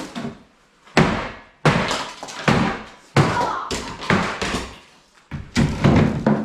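A series of about six heavy blows, roughly one a second, smashing an old kitchen countertop apart, each a sharp crack with a short ringing tail.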